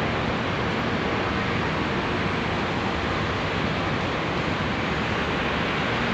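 Steady, unbroken rush of noise with a faint low hum inside a ferry's vehicle deck, typical of the ship's engines and ventilation running.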